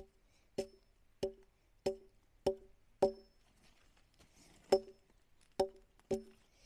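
A tool striking wood again and again, about one and a half blows a second, each with a short wooden ring. There are nine blows, with a pause of about a second and a half after the sixth.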